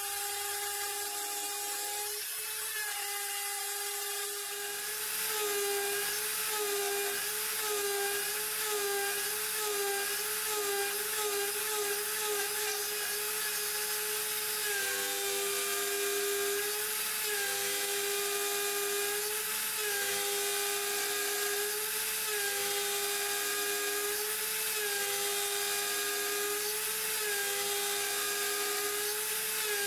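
Router spindle on a Mostly Printed CNC (MPCNC) milling aluminum plate: a steady high whine with a hiss on top, stepping up in loudness about five seconds in. The pitch dips briefly about once a second as the end mill moves through the cut.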